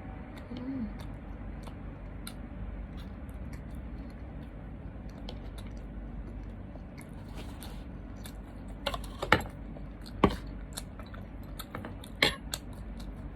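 A person eating: faint chewing and mouth clicks over a steady low background hum, with three sharp clicks about 9, 10 and 12 seconds in.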